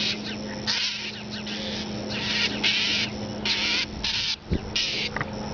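Birds giving harsh, raspy scolding calls, short and repeated irregularly about once or twice a second: alarm calls at a cat.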